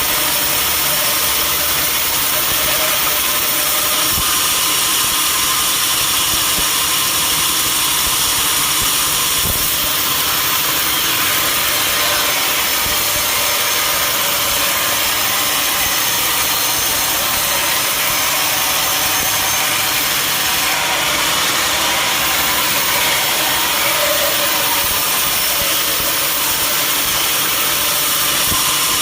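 Sawmill machinery running steadily, a loud, even mechanical noise with no pauses or changes.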